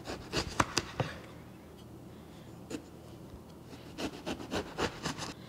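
Kitchen knife slicing through an eggplant on a plastic cutting board: short sawing strokes and knocks, in a burst near the start, a single stroke in the middle, and another burst about four seconds in.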